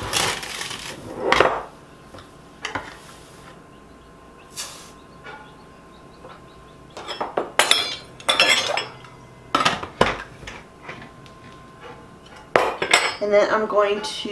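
Metal measuring cup scooping sugar and pouring it into an enamelware mixing bowl, followed by scattered clinks and taps of metal spoons and cups against the bowl and a stainless dish.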